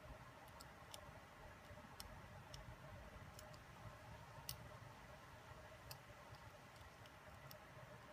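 Near silence with about a dozen faint, irregular clicks of small plastic and metal gimbal parts being handled and fitted together by hand; the clearest click comes about four and a half seconds in.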